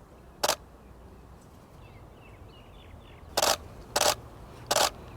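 Camera shutter firing: a single shot about half a second in, then three more shots spaced roughly two-thirds of a second apart in the second half.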